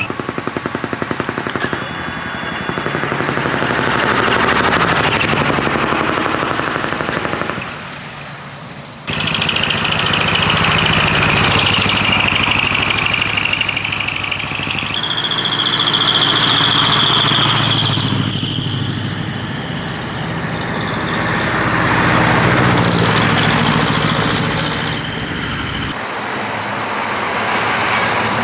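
Heavy trucks' diesel engines running as they drive past one after another, the sound swelling and fading with each pass. A steady high tone sounds over the engines for several seconds in the middle, and briefly again later.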